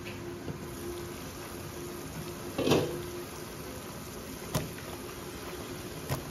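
A large aluminium pot of vegetable stew simmering on a gas stove, a steady bubbling hiss. A louder knock comes a little over two seconds in and a sharp click about a second and a half later as the glass lid is taken off. There is a small knock near the end as eggplant chunks go into the pot.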